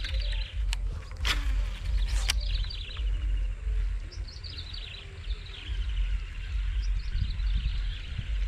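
Small birds chirping and calling over a steady low outdoor rumble, with two sharp clicks about a second apart early on.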